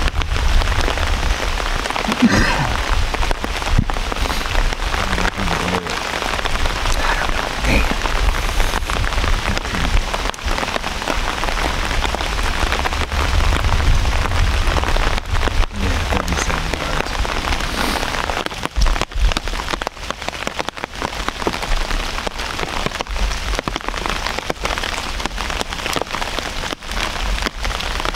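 Steady rain falling on the camo umbrella fabric overhead, with many close, sharp drop hits.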